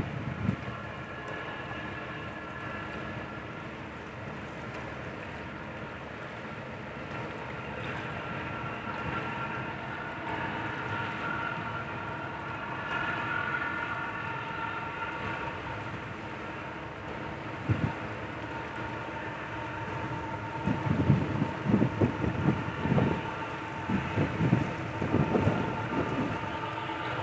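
Steady low drone of the training ship KL Laksamana Malahayati's engines as it sails past, with a faint steady whine. In the last third, wind buffets the microphone in repeated gusts.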